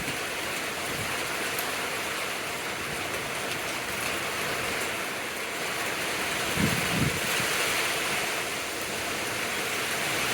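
Heavy rain pouring down in a steady hiss, with a couple of brief low thumps about two-thirds of the way through.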